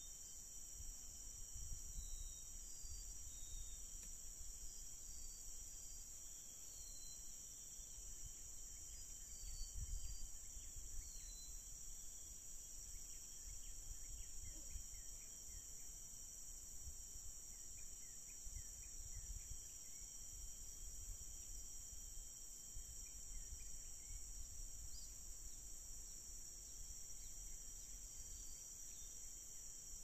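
Steady, continuous high-pitched drone of forest insects, with faint short chirping bird calls now and then.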